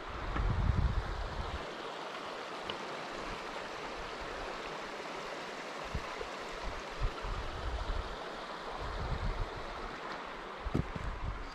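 A small mountain creek tumbling over rocks: a steady rush of running water. Low thumps and rumbles come and go over it, the loudest about a second in.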